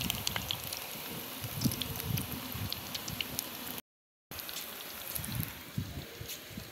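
Pakoras deep-frying in hot oil in an iron kadhai over a fairly high flame: a steady sizzle with many small crackling pops. The sound cuts out for a split second about four seconds in.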